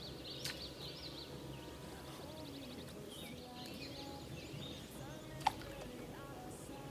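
Small birds chirping and trilling over faint steady outdoor background noise, with one short sharp click about five and a half seconds in.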